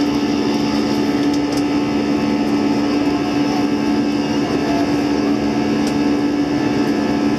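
Steady drone of an Airbus A320's jet engines and rushing air heard from inside the cabin, with a constant low hum running through it.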